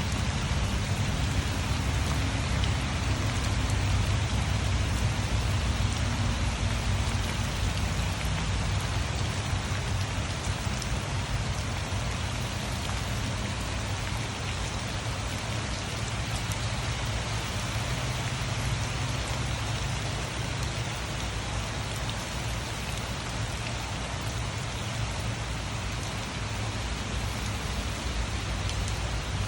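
Rain falling steadily: a dense, even hiss with a deep rumble underneath.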